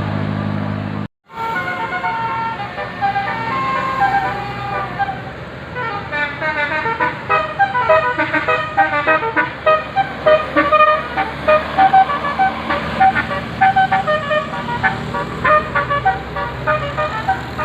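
Bus 'telolet basuri' melodic horn playing a tune: a string of changing pitched notes that turn into quick, short notes several a second in the second half. It begins with a low steady drone that cuts off about a second in.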